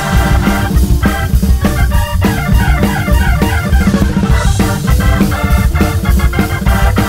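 Jazz-funk organ trio music: a Hammond B3 organ playing over a drum kit groove.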